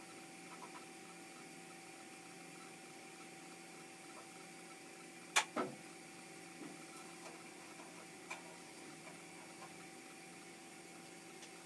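Milling machine being set up for a cut: a few clicks and knocks as the spindle is brought down to the work, the loudest a sharp clack about five seconds in, followed by a smaller one. A faint steady hum runs underneath.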